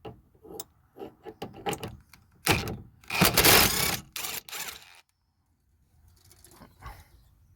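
Socket wrench with a T50 Torx bit undoing a seatbelt anchor bolt: a run of short clicks, then about two seconds of louder, dense clicking and scraping in the middle.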